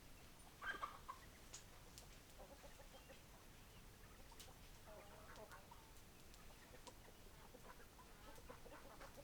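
Hens clucking softly, with one louder call about a second in and a few sharp ticks between the clucks.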